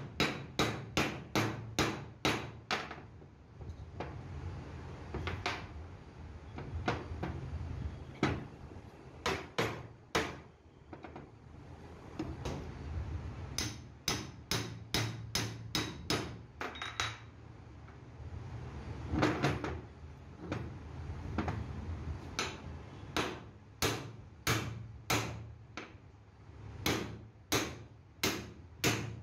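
Hammer blows on steel: a truck universal joint's bearing cups being driven into the driveshaft yoke, struck directly and through a drift. The strikes come in quick runs of about three a second, broken by short pauses with only a few lighter taps.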